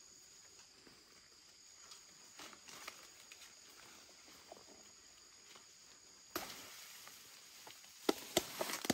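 Faint rustling with scattered light knocks, a sharp click about six seconds in, and a quick run of louder sharp clicks near the end.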